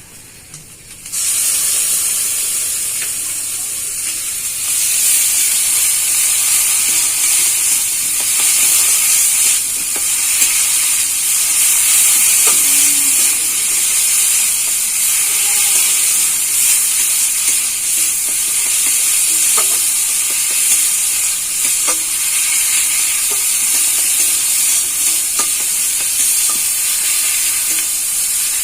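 Yogurt added to a frying spice paste in hot oil in a kadai, breaking into a loud, steady sizzle about a second in, with a spatula stirring and knocking against the pan now and then.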